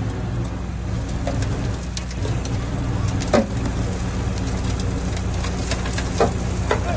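Heavy diesel engine of earthmoving machinery running at a steady speed, with a few sharp knocks over it, the loudest about three and a half seconds in.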